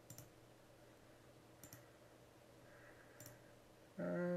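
Computer mouse clicking: a quick double click right at the start, another double click about a second and a half later, and a single click near three seconds, over a faint steady room hum. Near the end a voice comes in with a held, hum-like note.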